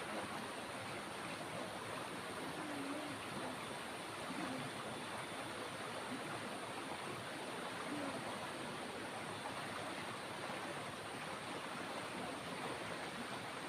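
Steady rushing of flowing water, even and unbroken throughout.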